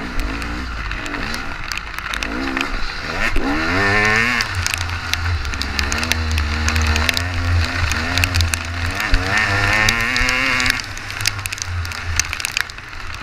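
Honda XR400 dirt bike's four-stroke single-cylinder engine revving hard under racing load. Its pitch climbs several times as it accelerates through the gears and drops back between pulls, with a steadier stretch in the middle.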